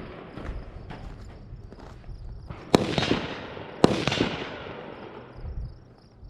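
Two gunshots about a second apart, each followed by a long echo that fades over a second or more.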